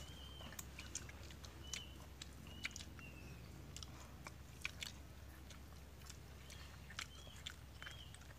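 Quiet close-up eating sounds: soft chewing and mouth clicks from someone eating stir-fried balut in tamarind sauce. A short high chirp repeats about eight times in the background.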